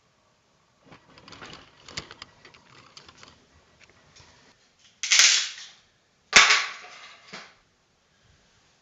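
Clicking and rattling of small hard objects being handled, then two loud, sharp bangs a little over a second apart; the second bang is the loudest.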